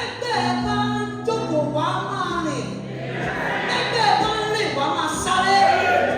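Gospel worship music: voices singing over steady held low notes.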